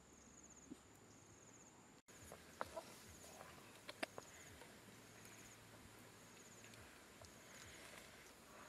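Faint outdoor ambience with an insect chirping high and steadily. After a cut about two seconds in, a pot of fish soup is boiling over a wood fire, with a few soft pops and crackles.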